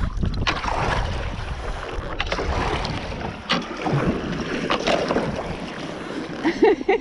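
Kayak paddle strokes: the blades of a double-bladed paddle dip and splash in the water about four times, roughly one stroke every second and a half, over a steady rumble of wind on the microphone.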